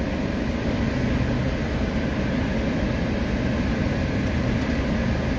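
Steady low rumble of a running car, heard from inside the cabin.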